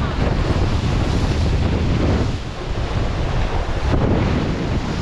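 Wind buffeting the onboard microphone over the steady rush of water past the hulls of an Extreme 40 racing catamaran sailing at speed.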